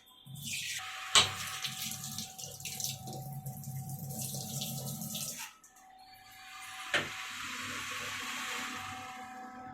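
Tap water running into a kitchen sink, with a sharp knock about a second in. The flow stops about five and a half seconds in; after another knock, water runs again more softly and fades.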